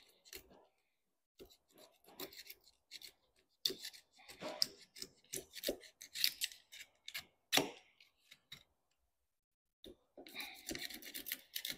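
Knife blade cutting and scraping away glass cloth laid up in epoxy where it overhangs the edge of a sailboat's skeg. Irregular short, scratchy strokes, with a brief pause about nine seconds in.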